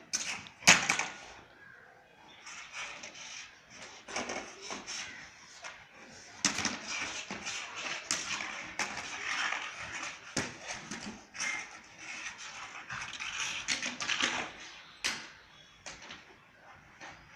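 A Labrador dragging and knocking a plastic long-handled floor wiper across concrete paving: scraping with irregular clattering knocks, the loudest about a second in.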